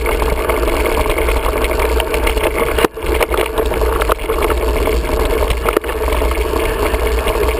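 Wind buffeting the microphone of a camera riding on a mountain bike, over the steady rattle and rumble of the bike rolling along a dirt singletrack, with occasional knocks as the wheels hit bumps.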